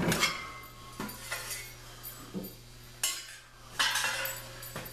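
Scattered metallic clinks and knocks, about half a dozen, irregularly spaced.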